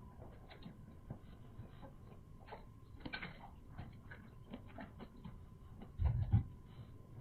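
Close-miked chewing and wet mouth sounds of someone eating boiled sea snail meat: a run of small clicks and smacks, with one louder, heavier chomp about six seconds in.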